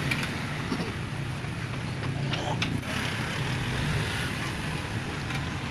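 Steady low engine hum, with a few light clicks a little over two seconds in.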